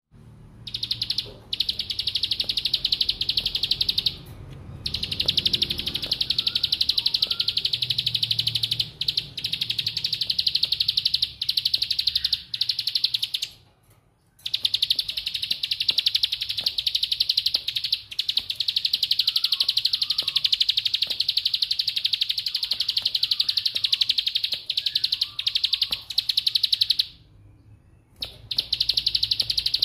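Plain prinia (ciblek sawah) singing its 'bren' song, a rapid, continuous rattling trill of very fast repeated notes held for many seconds at a time. The song breaks off briefly about 4 seconds in, at about 14 seconds, and for a second or so near the end.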